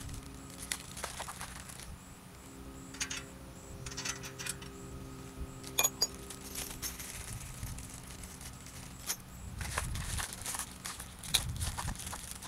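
Small metal parts clinking, with rustling, as bolt hardware is handled, and two sharp clicks: one about six seconds in and one near the end.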